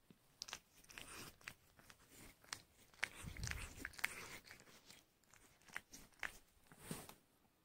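Quiet wet clicks and smacks from a sphynx mother cat and her newborn kitten at her nipple, suckling and licking, most frequent about three to four seconds in.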